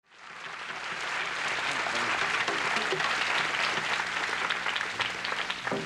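Studio audience applauding, swelling in over the first second and easing off near the end.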